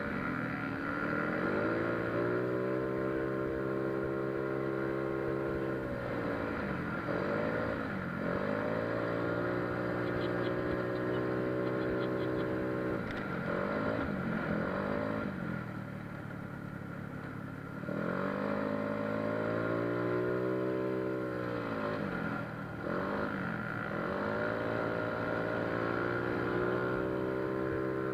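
Yamaha Mio Soul scooter's bored-out 160cc single-cylinder four-stroke engine, fitted with a 59 mm bore kit, big valves and a 28 mm carburettor. It climbs to a steady high pitch and holds there for several seconds, then eases off and pulls up again, about three times.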